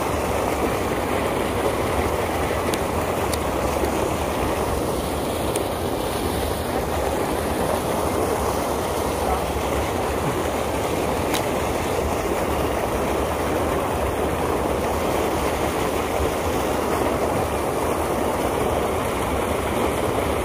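Steady rushing of flowing river water, with a few faint high clicks about 3, 5½ and 11 seconds in.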